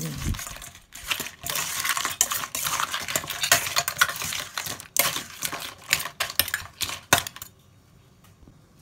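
Raw blue swimming crab pieces being tossed with kitchen tongs in a stainless steel bowl: a dense, irregular clatter of shells and tongs clicking and scraping against the metal, which stops about a second before the end.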